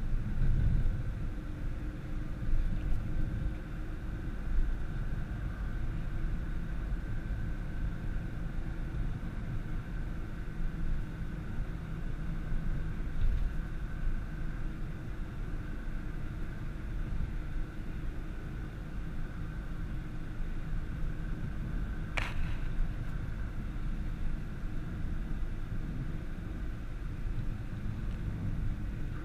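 Nissan GT-R driving, a steady low rumble of engine and road noise. A single sharp click comes about three-quarters of the way through.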